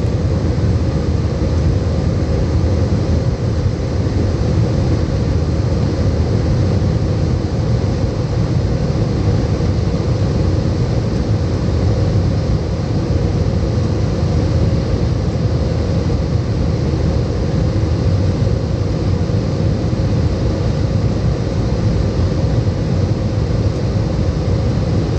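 Steady rumble of engines and airflow inside an Airbus A320's cabin, with a steady droning tone over it.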